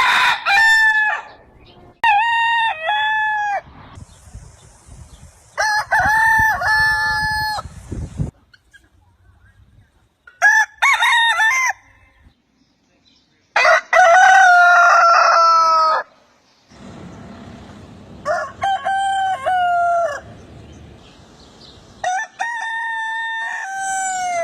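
Rooster crowing again and again: about seven full cock-a-doodle-doo crows, each lasting one to two seconds, a few seconds apart.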